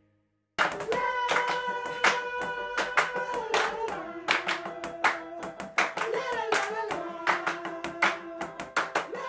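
A small group singing a tune together over hand claps and drum hits keeping a beat, starting about half a second in after a brief silence.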